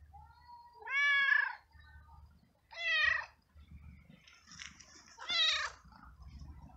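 A tabby cat meowing three times, about two seconds apart. Each meow rises and then falls in pitch, and the first is the longest.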